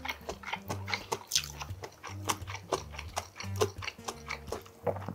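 A man eating ramen: a run of short slurping and chewing sounds as he sucks up and chews tonkotsu ramen noodles, over background music with a steady low bass line.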